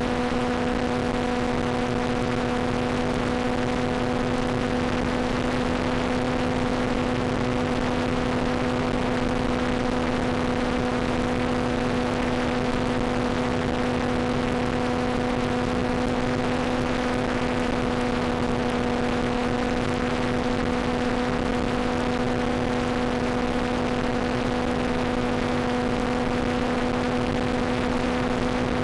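A steady hum at one constant pitch, with fainter overtones, over an even hiss, recorded on the FPV ground station's video-link audio. The pitch does not change.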